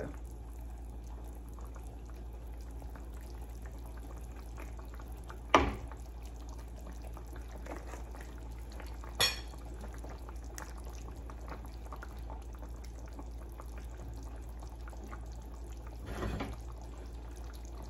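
Chicken curry simmering in a nonstick pan, a faint steady bubbling, with two sharp knocks of a utensil against the pan, one about a third of the way through and one about halfway. Near the end a silicone spatula briefly stirs the curry.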